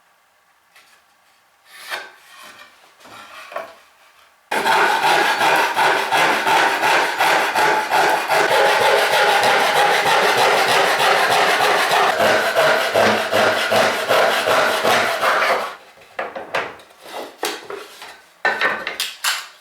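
A saw cutting through a pine board: a loud, dense, steady rasp lasting about eleven seconds. Scattered knocks of wood being handled come before and after it.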